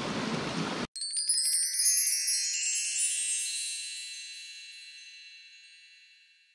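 Mountain stream water rushing, cut off abruptly about a second in by a wind-chime sound effect: a run of high, tinkling chime notes that ring on and fade slowly away.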